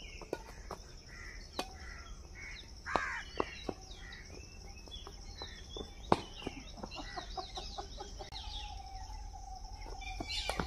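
Badminton rally: sharp clicks of rackets hitting a shuttlecock at irregular intervals a second or two apart, with birds calling and chirping around the court and a steady high hiss behind.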